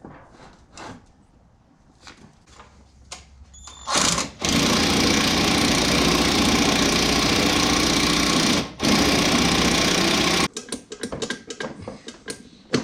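Cordless impact wrench hammering in two long bursts, the first of about four seconds and the second of about two, driving an engine-mount bolt. Small metal clinks from handling parts and tools come before and after.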